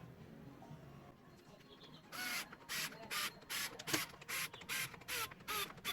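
A run of about nine rhythmic scraping strokes, roughly two and a half a second, starting about two seconds in.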